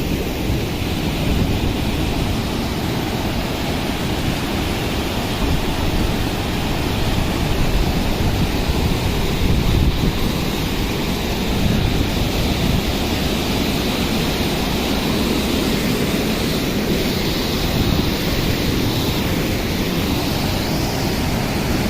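Steady rush of falling water from a waterfall, with wind buffeting the microphone.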